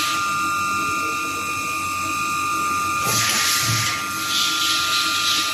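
CNC machine tool running with a steady high-pitched whine, joined by two bursts of hiss about three and four and a half seconds in.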